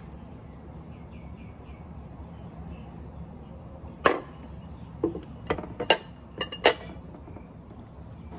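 A drinking glass set down on a glass-topped table, with a few more sharp clinks and knocks of glass and tableware: about six in all, between four and seven seconds in, over a low steady hum.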